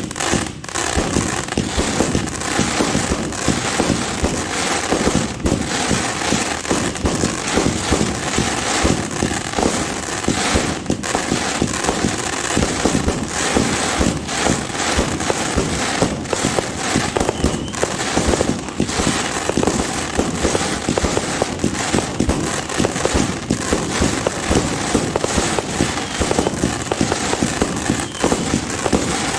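A 100-shot fireworks cake firing, its shots and bursts following one another rapidly without a break.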